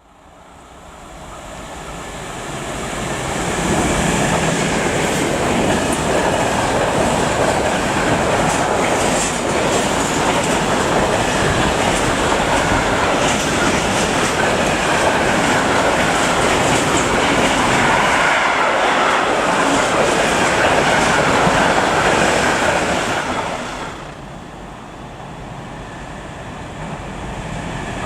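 A train passing through a station. It builds up over the first few seconds, stays loud for about twenty seconds, fades a little near the end, then swells again.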